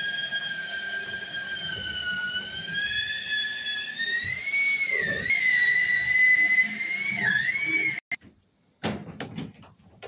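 A steady, high-pitched whistling whine with overtones. Its pitch sags and then climbs and wavers a little before it cuts off suddenly near the end. A few faint knocks follow.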